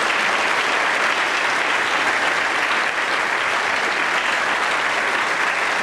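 Audience applauding: dense, steady clapping from a crowd that holds an even level throughout.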